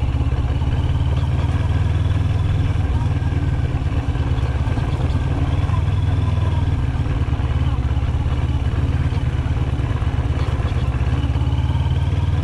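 Motorcycle engine running steadily as the bike rolls slowly along at low speed, the sound dominated by a strong, constant low end.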